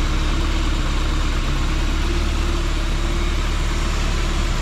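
Nissan 240SX's KA24E 2.4-litre four-cylinder engine idling steadily.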